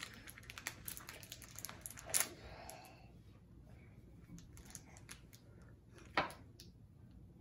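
Plastic candy wrapper being handled and torn open: a run of light crinkling and clicking, with sharper crackles about two seconds in and again about six seconds in.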